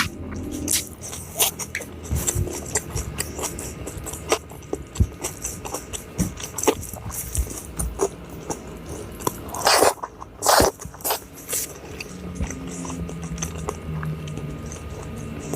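Close-miked chewing and crunching of food, a steady run of small wet clicks and bites, with two louder crunches about ten seconds in.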